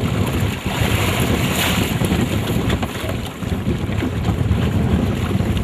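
Wind buffeting the microphone over water splashing at the side of the boat as a hooked shark thrashes alongside. The splashing swells briefly louder about a second and a half in.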